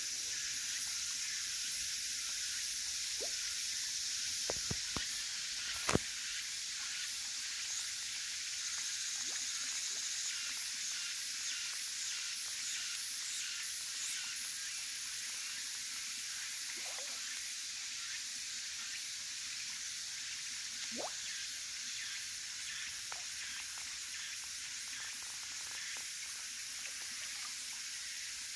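Steady high-pitched hiss of outdoor ambience, with a few faint clicks, the sharpest about six seconds in.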